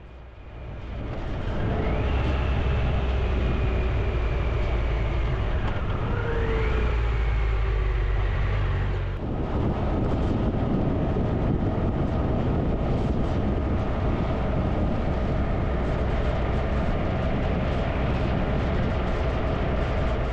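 Motorcycle engine heard from the bike while riding, with a heavy low rumble of wind and road noise. In the first half the engine pitch climbs, sinks slowly and climbs again. About halfway through the sound changes abruptly to a steady cruising drone.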